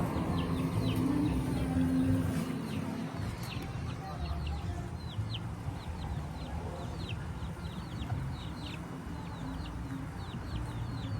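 Birds chirping in a stream of short chirps that fall in pitch, about three a second, over a steady low rumble that is louder in the first few seconds.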